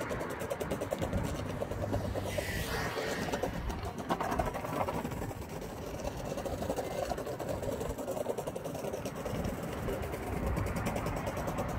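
Longboard wheels rolling over brick paving: a steady rumble with a fast, even clatter from the joints.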